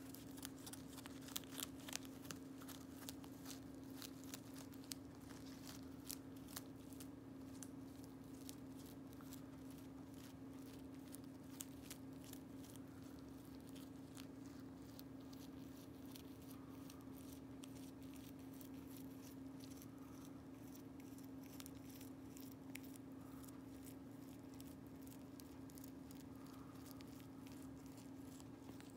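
A rabbit chewing and tearing fresh mulberry leaves: rapid, faint crisp clicks of nibbling, louder in the first few seconds, over a steady low hum.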